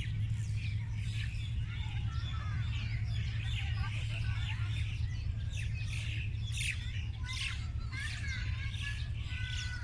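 Many small birds chirping together, short high chirps overlapping throughout and busiest in the second half, over a steady low hum.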